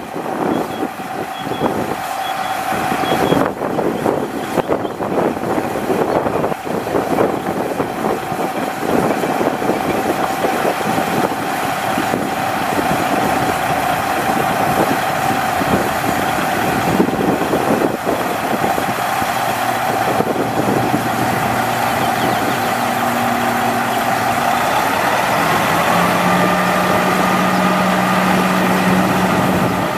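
2009 Sterling L9500 dump truck with its International DT466 diesel running. A steady whine sits over clattering noise throughout. A deeper hum joins about two-thirds of the way in, and a higher-pitched tone comes in near the end.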